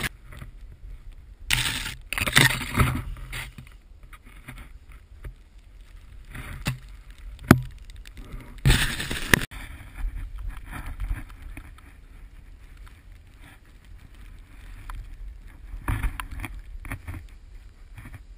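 Snowboard riding through deep powder, heard on an action camera's microphone: a steady low wind rumble with louder rushes of hissing snow as the board carves, strongest about two seconds in and again around nine seconds in, and one sharp knock in between.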